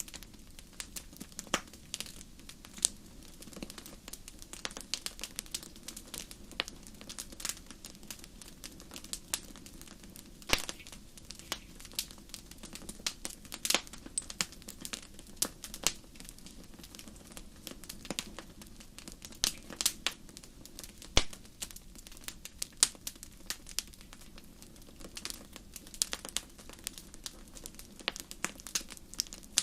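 Campfire crackling: irregular sharp pops and snaps, some much louder than others, over a steady low hush.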